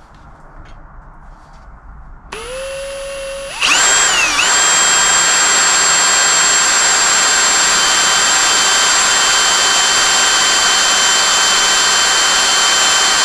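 Electric drill motor spinning up about two seconds in, then running much louder about a second later. Its pitch sags briefly as it takes load, then it holds a steady, even whine while drilling steel.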